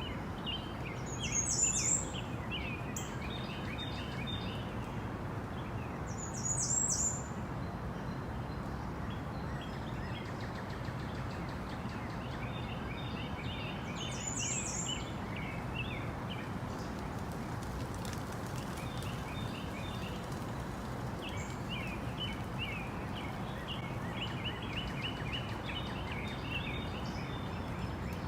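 Tropical rainforest ambience: several birds calling over a steady background hiss, with runs of short rapid chirps and a louder high call three times, the first two standing out most.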